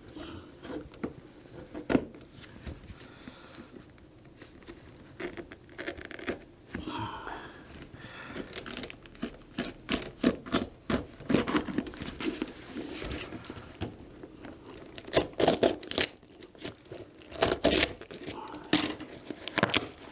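A cardboard shipping box being opened by hand: irregular scraping, tearing and tapping of cardboard and packing tape, busier in the second half.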